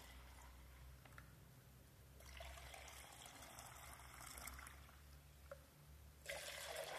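A watery nutrient solution poured from one plastic measuring jug into another, back and forth to mix it, trickling in faintly. One pour runs from about two seconds in to nearly five seconds, and another starts near the end.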